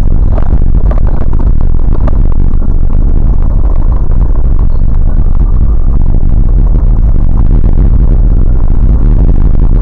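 Vehicle driving over a rough, snow-covered dirt track, picked up by a dashcam in the cabin: a loud, steady low rumble, with a couple of knocks in the first two seconds.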